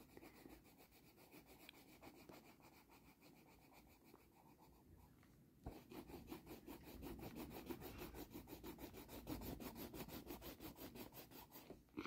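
Pencil rubbing back and forth on paper, shading or coloring in a drawing. It is faint at first, then from about halfway through a steady run of quick strokes, several a second.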